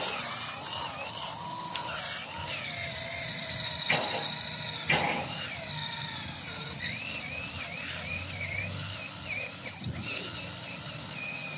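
Small cordless battery drill boring into hard jackfruit tree root wood, the motor whining steadily under load while the pitch wavers as the bit bites, with two sharp knocks about four and five seconds in. The drilling is slow because the bit is small and the drill is battery-powered.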